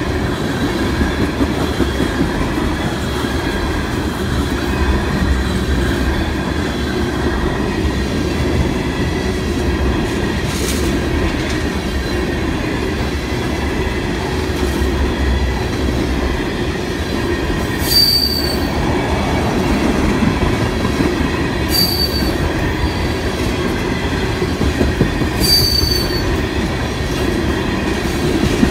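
Freight train cars rolling past: a steady rumble of wheels on rail, with three short, high wheel squeals in the second half.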